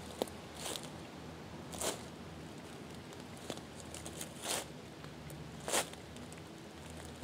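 Boots stepping slowly through dry fallen leaves, several crunching footfalls at uneven intervals with the loudest near the end. The broken cadence is the woods-walking step, meant to sound like a deer walking rather than a person.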